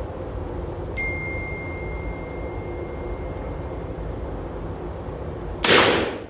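A single shot from a Rossi Puma .44 Magnum lever-action carbine near the end, the loudest sound. About a second in there is a short metallic ping that rings on at one pitch for a few seconds, over steady background noise.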